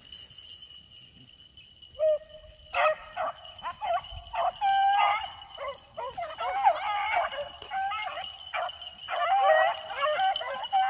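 Beagles baying on a rabbit's track: short, rapid, overlapping barks and bawls that start about two seconds in and keep going, the sound of the pack running the rabbit.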